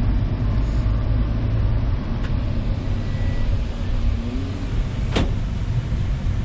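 Steady low rumble, with a sharp click about five seconds in.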